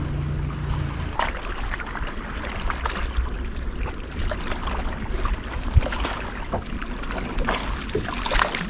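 A low, steady motor hum from the fishing boat stops about a second in. After that, water laps and splashes around the boat, with scattered small knocks and clicks.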